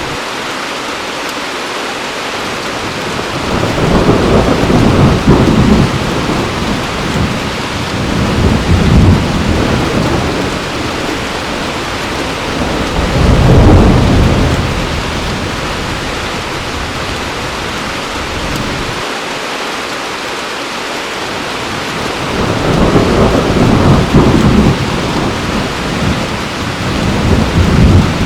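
Heavy rain falling steadily, with thunder rumbling in long rolls several times: a few seconds in, again near the middle, and twice more near the end.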